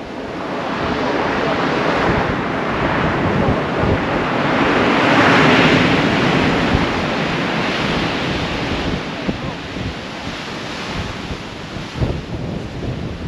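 Heavy surf in a gale: a big wave breaks and crashes on the beach, building to its loudest about five or six seconds in and then washing back, while strong gusts buffet the microphone.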